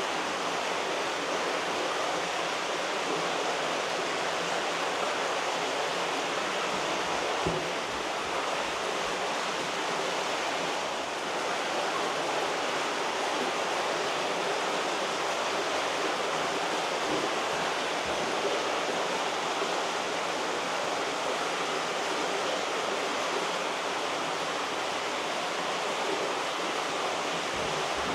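Steady rush of water in koi farm holding tanks, from the tanks' fast water flow and heavy aeration. A faint low knock comes about seven seconds in.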